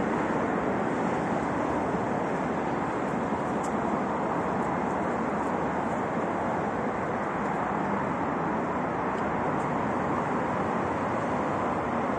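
Steady hum of city road traffic, even and unbroken, with a few faint ticks.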